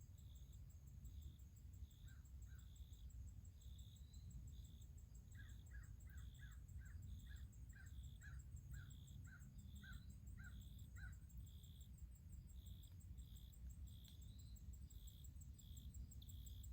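Faint birds calling in a near-silent open-air setting: a high chirp repeats about once a second throughout, and midway a run of about a dozen short calls comes two a second, over a low background rumble.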